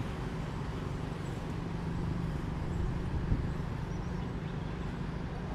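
Diesel engine of a train standing at the platform, idling with a steady low hum. A single short knock sounds a little past halfway.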